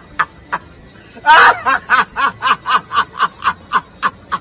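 A man laughing hysterically: a long, loud shrieking laugh about a second in, then a run of short, high-pitched cackles at about four a second.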